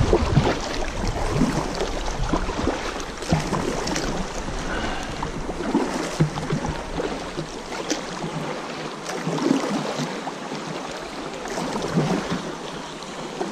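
River current rushing and splashing around a kayak's hull through choppy water, with scattered paddle splashes. Wind rumbles on the microphone during the first half, then drops away.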